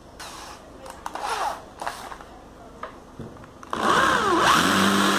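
Electric drill boring into a small block of wood, starting up a little over two-thirds of the way in: the motor's pitch dips as the bit bites, then it runs steadily, cutting a recess for a screw head. A few short scraping noises come before it.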